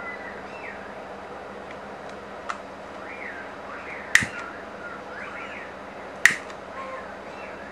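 A lighter clicked near the detector circuit's coil: three sharp single snaps about two seconds apart, the first faint, the next two loud. Faint repeating chirps sound in the background.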